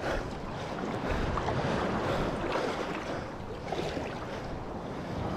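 Surf washing on the beach, with wind buffeting the microphone in a steady rushing noise.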